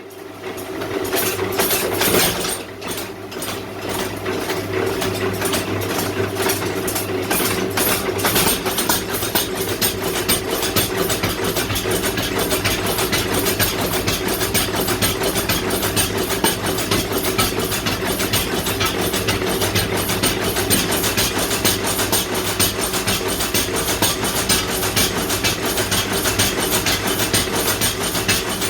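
Mechanical power hammer running and striking hot iron in a fast, even rhythm of blows over the steady hum of its motor.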